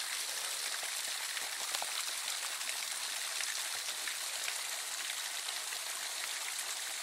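Water running steadily in a small woodland creek, an even rushing hiss.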